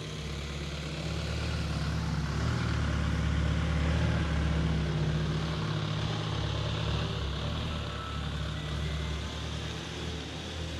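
Low, steady engine rumble of a motor vehicle running nearby, swelling to its loudest about halfway through and then easing off.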